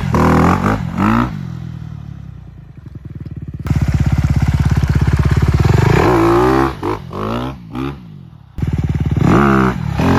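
Honda CRF250R four-stroke single-cylinder dirt bike engine revving hard: quick throttle blips at the start, a steady high-rev run from about four seconds in, then revs rising and falling with sharp throttle chops.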